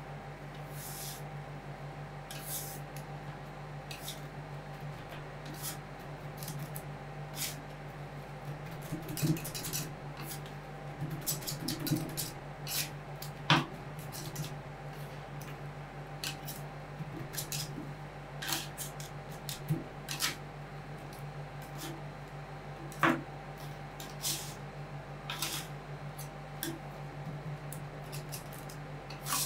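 Metal spatulas chopping and scraping on an ice cream roll cold plate: irregular sharp taps and clicks with short scrapes, over a steady low hum.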